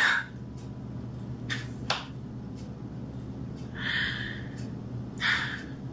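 Quiet room tone with a steady low hum, a single sharp click about two seconds in, and two short breathy hisses, like exhalations, around four and five seconds in.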